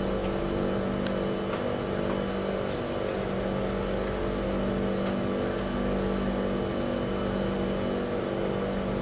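Steady hum of an MRT train standing at a station with its doors open: the train's on-board equipment holding several even tones over a low rumble.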